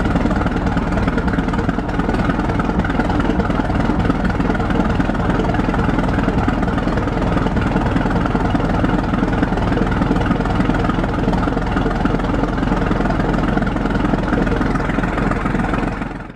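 The 1917 Holt 120 crawler tractor's large four-cylinder engine running steadily, then fading out at the very end.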